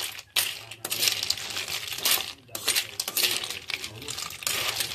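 Small metal objects clinking and jingling in several bursts with brief gaps between them.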